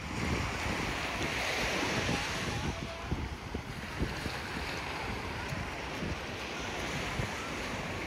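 Small surf washing onto a sandy beach, a steady hiss that swells for a couple of seconds early on, with wind gusting on the microphone.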